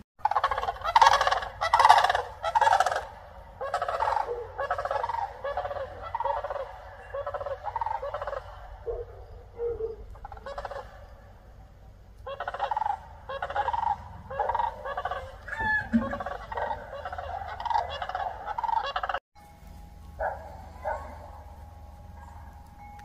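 Eastern wild turkeys calling: long runs of short, repeated yelping notes, several a second. The calling eases off about halfway through, picks up again, and breaks off suddenly near the end, leaving only a few fainter calls.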